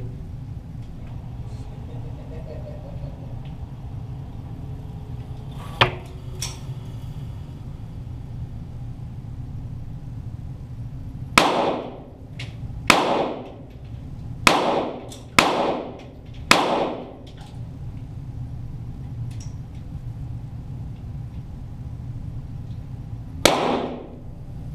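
.22 Walther GSP target pistol shots, each echoing off the range walls. There are five shots in about five seconds, then one more some seven seconds later, over a steady low hum. A single sharp click comes earlier, before the shots.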